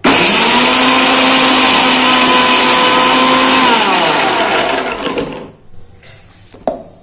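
Electric mixer grinder (mixie) running at full speed, grinding chopped carrot, green chilli, ginger and cumin in its steel jar with the lid held down. It starts abruptly, runs with a steady whine, and is switched off about four seconds in, its pitch falling as the motor spins down.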